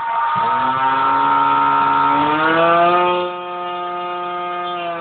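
Electric motor and propeller of an RC Art Tech Cessna 182 spinning up under throttle: a whine that starts about half a second in, rises in pitch about two seconds in, holds steady, and begins to wind down near the end. A steady high beep, which the owner says the phone's microphone exaggerates, stops as the motor starts.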